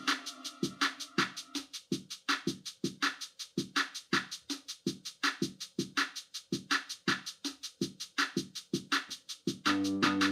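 Suzuki Omnichord OM-108's built-in rhythm machine playing a quick, even drum-machine beat on its own. Near the end, a held chord with a bass line comes back in over the beat.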